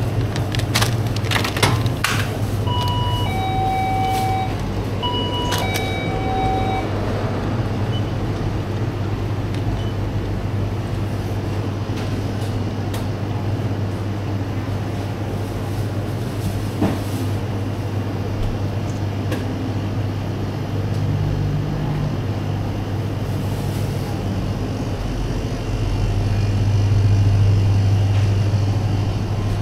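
An electronic ding-dong door chime sounds twice a few seconds in, each time a higher note falling to a lower one, over a steady low hum that swells near the end.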